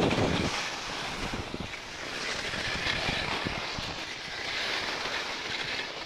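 Steady hiss of wind on a phone's microphone, with irregular soft crunches and knocks of boots on snow.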